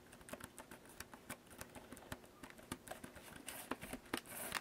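Typing on the keys of a thin, low-profile Firefly Borealis illuminated keyboard: a quick, irregular run of soft key clicks, somewhat quiet.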